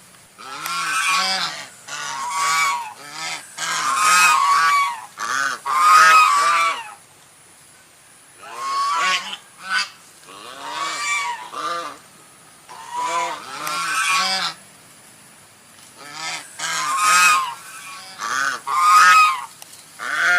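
White goose honking over and over: loud, harsh, nasal calls in bouts of several at a time, broken by pauses of a second or two.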